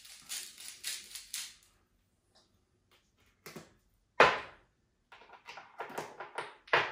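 Hand salt grinder being twisted, a quick run of crunching clicks that stops about a second and a half in. A sharp knock follows about four seconds in, then more short clicks and rattles near the end.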